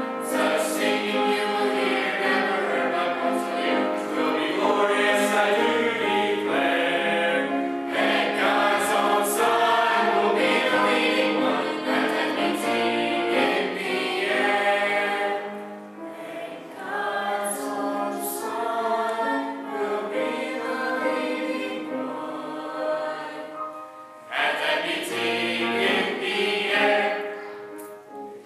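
Youth choir singing a gospel song in several voice parts. It goes softer for a stretch in the middle, swells loud again, then fades out on the final chord near the end.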